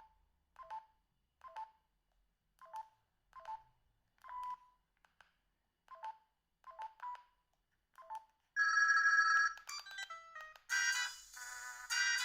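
Binatone BB200 mobile phone beeping at each keypress as its menu is scrolled: short chirps at uneven intervals. About eight and a half seconds in, a louder ringtone starts playing, a held tone followed by a quick tune of electronic notes.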